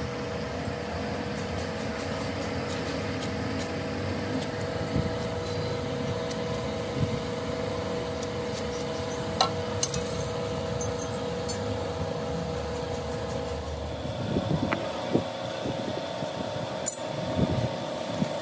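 Workshop machine running with a steady hum, with a few light metallic clinks; the hum's pitch shifts about fourteen seconds in.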